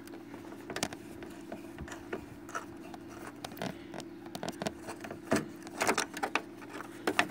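Scattered small clicks and taps of fingers handling and working loose a plastic number-plate light unit from its housing in the rear trim, over a steady low hum; the louder clicks come about five and six seconds in.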